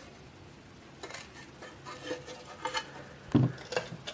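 Aluminium amplifier case being worked apart by hand, its two halves corroded together: a string of small metallic clicks and knocks that starts about a second in, the loudest about three and a half seconds in.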